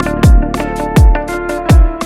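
Electronic background music with a deep, falling bass kick about every 0.7 seconds, crisp hi-hat ticks between the kicks, and sustained synth tones.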